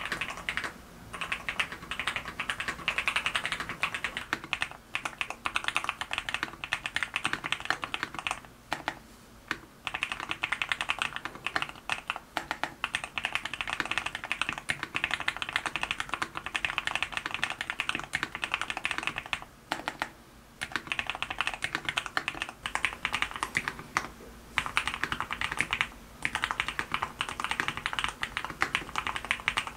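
Steady fast typing on a GEON F1-8X keyboard with lubed Sea Salt switches: a dense run of keystrokes with a slightly clacky, muted tone, broken by a few short pauses of about a second.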